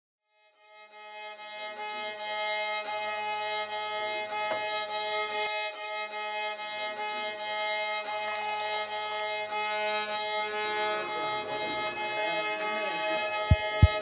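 Instrumental music fades in as a steady, sustained drone of held notes over a low bass drone. A couple of sharp low thumps come near the end.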